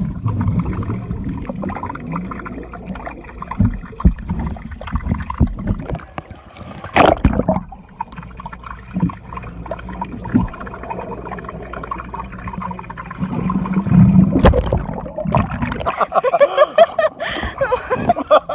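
Muffled water noise heard through a microphone held underwater in a pool: a dense rumble with gurgling and small clicks, and sharp knocks about seven seconds in and again near fifteen seconds.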